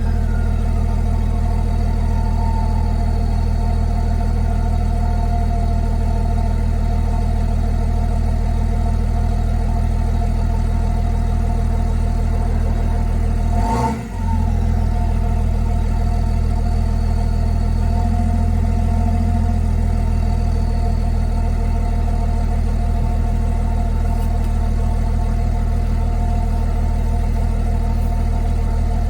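BMW X5 35d's 3.0-litre twin-turbo straight-six diesel, with its cat and particulate filter deleted and a stock muffler, idling steadily with a faint turbo whistle over it. A whistle slides down in pitch at the start, and about halfway the sound briefly dips with a sharp click.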